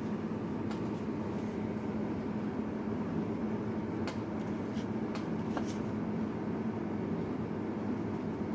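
Steady low hum and drone of background noise, with a few faint short ticks and scratches about four to six seconds in as a felt-tip marker touches and draws on paper.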